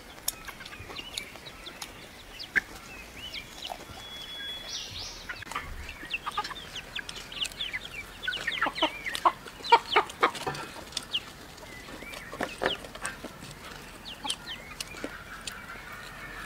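Chickens clucking in short, quick calls, busiest about eight to eleven seconds in.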